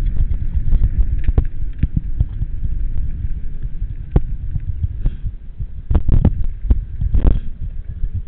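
Mountain bike rolling downhill over a rough concrete path, heard through a handlebar-mounted camera: a constant low rumble from the vibration, with many sharp rattles and knocks from the bike and its mount. The knocks come thickest about six to seven seconds in.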